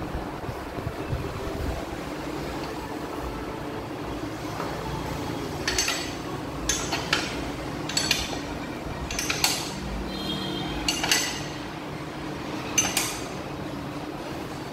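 Several sharp, irregularly spaced metallic clinks of work on a motorcycle's rear wheel and drive chain, starting about six seconds in, over a steady low workshop hum.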